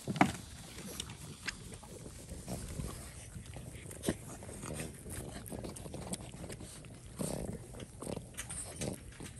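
Boston terriers chewing chunks of watermelon: irregular wet smacking and crunching, with a sharp click about a fifth of a second in.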